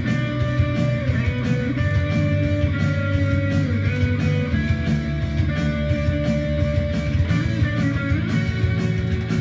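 Rock music playing, with guitar to the fore.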